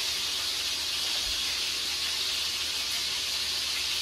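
Beef brisket searing in very hot oil in a pan, giving a steady, even sizzle.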